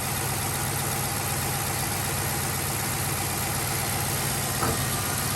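2013 Chevrolet Caprice PPV's 6-liter V8 idling steadily, with no weird noises, thumps or knocks.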